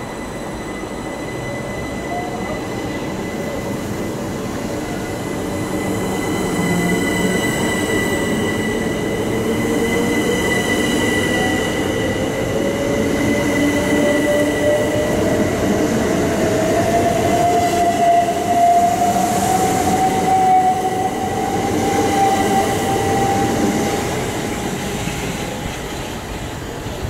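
Class 375 Electrostar electric multiple unit pulling away from the platform, its traction motor whine rising steadily in pitch as it gathers speed over a steady high tone. The running noise grows louder through the middle and fades near the end as the train draws away.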